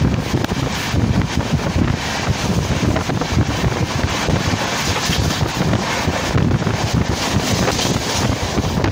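Wind buffeting the microphone at the open window of a fast-running Tamil Nadu Express coach, over the unbroken rumble of the train on the track.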